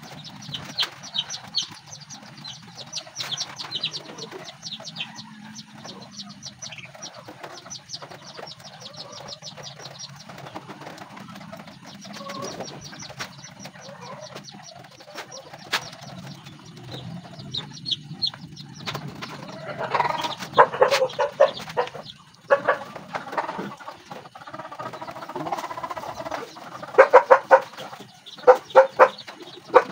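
Chickens clucking, with loud runs of clucks about two-thirds of the way through and again near the end.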